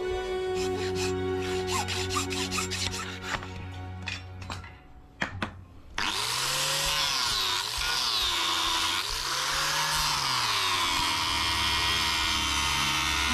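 A hand hacksaw cuts metal in quick back-and-forth strokes. About six seconds in, an angle grinder with an abrasive disc starts grinding the knife, running loud and steady, its pitch dipping and rising as it is pressed on and eased off.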